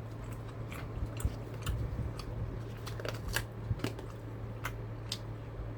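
A person chewing a mouthful of rice and bean burrito close to the microphone, with irregular wet mouth clicks.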